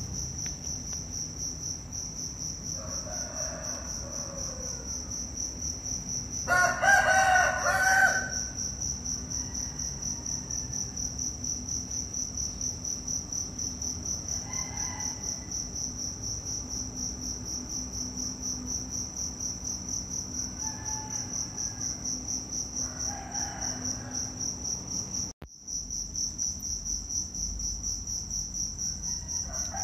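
A steady chorus of insects, shrilling in even pulses, with a few short animal calls over it; the loudest call comes about seven seconds in. The chorus cuts out for a moment about 25 seconds in.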